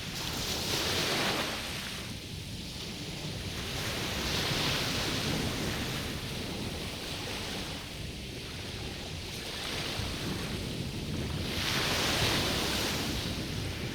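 Small waves washing onto the beach, the surf swelling and falling back every three to four seconds, over a steady low rumble of wind.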